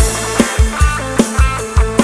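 Loud instrumental music from an Isan rot hae sound-truck band: a drum kit keeping a fast, steady kick-drum beat under plucked, guitar-like melody notes.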